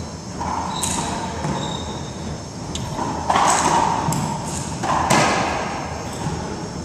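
Racquetball rally: the ball cracks off racquets and the court walls in three loud hits a couple of seconds apart, each echoing in the enclosed court.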